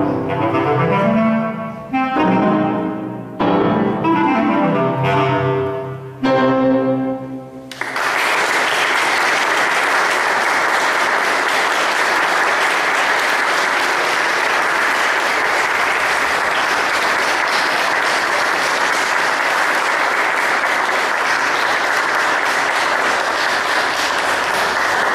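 Bass clarinet and piano play the closing phrases of the piece, broken by short pauses. About eight seconds in, the music ends and steady audience applause takes over.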